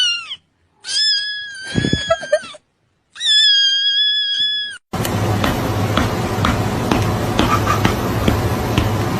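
A cat meowing three times: a short falling call, then two longer high-pitched meows, the last held steady for over a second. About five seconds in they give way to a steady hiss with a low hum and scattered clicks.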